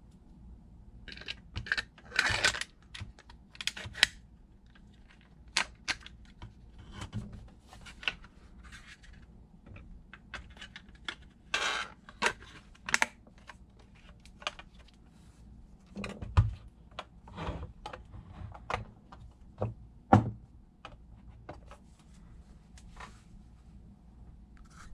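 Hard plastic clicks, knocks and short scrapes as the 3D-printed shell of an airsoft FPG is handled and fitted back together around its pistol. They come irregularly, with the sharpest knocks about 2, 4, 16 and 20 seconds in.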